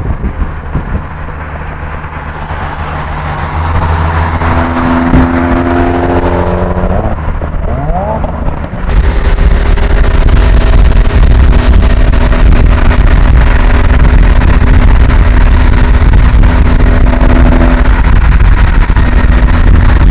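Car engine accelerating, its pitch climbing steadily, with a gear change about seven seconds in. From about nine seconds on the engine holds a steady note under a loud rushing noise.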